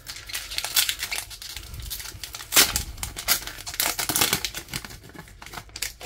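Foil wrapper of a Pokémon Scarlet & Violet booster pack crinkling and tearing as it is ripped open by hand, loudest about two and a half seconds in.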